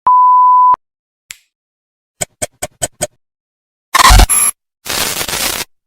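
A series of stock sound effects: first a loud, steady single-pitch censor bleep lasting under a second, then five quick ticks, a loud hit with a low thud about four seconds in, and a short burst of hiss near the end.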